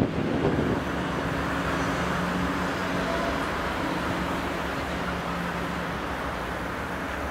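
Steady outdoor rumble of road traffic mixed with the faint low hum of a double-deck electric regional train approaching slowly in the distance.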